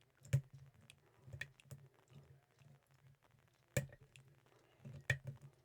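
Metal lock pick and tension wrench clicking against the pins inside an Ace 54541 brass padlock as it is picked, as light scattered ticks with a few sharper clicks.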